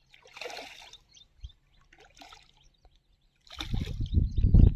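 A hooked fish splashing at the water's surface in short bursts as it is pulled in on a hand line. About three and a half seconds in, it breaks into much louder, continuous splashing and thrashing at the bank's edge.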